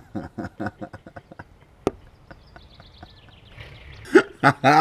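Stifled laughter in short, evenly spaced breathy pulses, a single sharp click about two seconds in, then louder open laughing near the end.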